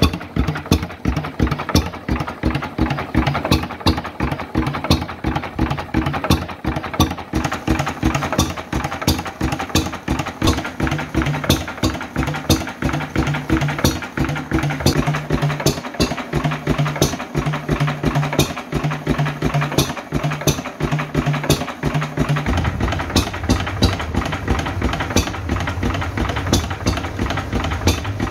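Vintage Lister 3 hp side-valve hit-and-miss stationary engine running, with a regular beat of sharp clicks a few times a second over a low steady drone.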